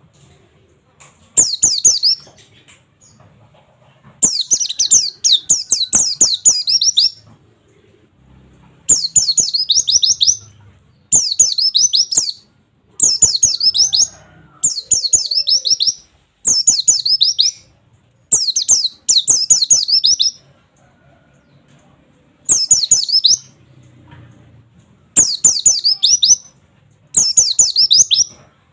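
Pleci (white-eye) singing the fast 'nembak' song: about a dozen high-pitched bursts of rapid, sweeping notes, each a second or two long, with short pauses between them. It is the kind of song played to a young pleci to train it to sing.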